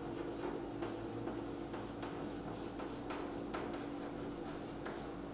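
Chalk writing on a chalkboard: a string of short, irregular scratchy strokes and taps as letters are written, over a steady low hum.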